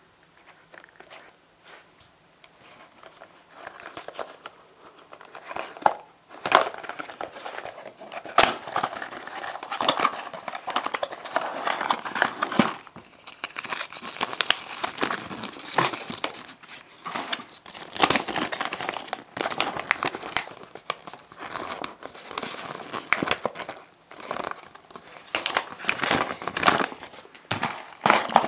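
The plastic wrapping and small cardboard box of a mini building-block kit being crinkled and torn open by hand, with irregular crackles and sharp clicks. Faint at first, louder from about six seconds in.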